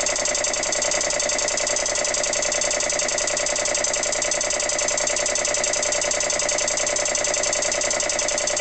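Vintage Dunlop two-stage piston air compressor running steadily with a fast, even pulsing beat, pumping its tank up close to its 120 psi cut-out.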